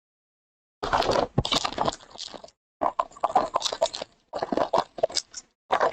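Foil wrapper of a trading-card pack crinkling and tearing open, in four crackly bursts that start about a second in.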